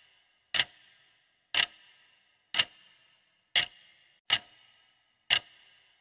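Clock-tick sound effect for a quiz countdown timer: six sharp ticks, about one a second, each with a short ringing tail.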